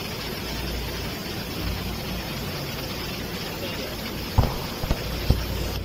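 Steady background hum, then about four seconds in, three sharp knocks on a seized, rust-crusted butterfly valve gearbox being worked free after WD-40 and oil.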